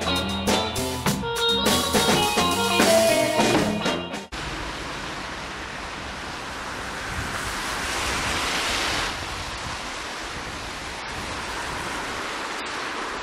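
Rock band music with electric guitar and drums, cutting off suddenly about four seconds in. It gives way to steady hiss of traffic on a wet street, which swells for a couple of seconds around the middle.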